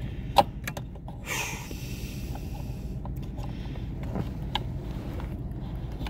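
Hands fumbling with a brake pedal position sensor at a car's pedal bracket, working its pin toward the mounting hole. There is a sharp click about half a second in, then a few lighter clicks and a brief rustle, over a steady low hum.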